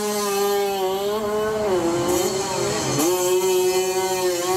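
Small-capacity two-stroke drag-racing motorbike engine revving high and held steady. Its pitch sags about two seconds in, dips sharply a second later, then climbs back.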